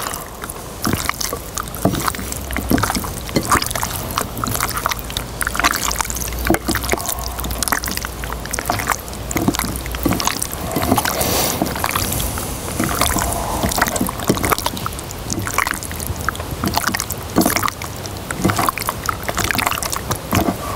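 Hands squelching and sloshing raw chicken breasts through an oily mustard-and-lemon marinade in a glass bowl: a run of irregular wet squishes and small clicks as the meat is kneaded and turned. A low rumble lies under the first half.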